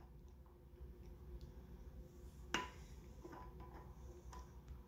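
A center punch ticking against the hardened steel of a starter's Bendix drive: one sharp metallic tick about two and a half seconds in, then several fainter ticks. The steel is too hard for the punch to take much of a mark.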